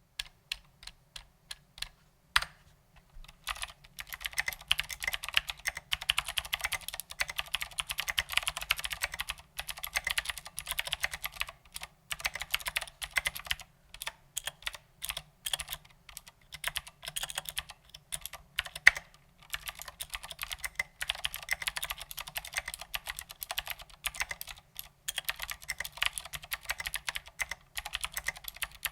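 Mechanical keyboard typing on a Ducky Legend with clicky Cherry MX Blue switches under SA-profile ABS doubleshot keycaps. For the first few seconds single keys are pressed slowly, one by one, then it breaks into fast, continuous typing with a few short pauses.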